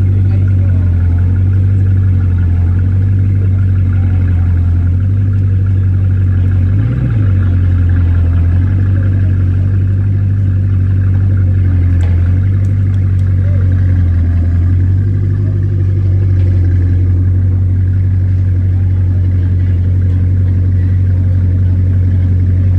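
Vehicle engine idling steadily with a deep, low drone; its pitch wavers briefly about seven seconds in.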